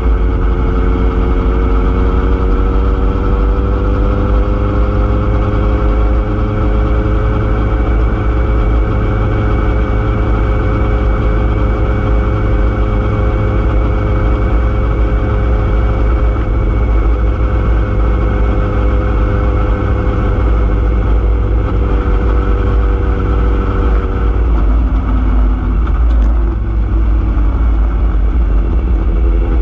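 A vehicle's engine running as it drives along a road, under a heavy low rumble of wind and road noise. The engine's pitch climbs over the first few seconds, holds steady, dips about three quarters of the way through, then rises again near the end.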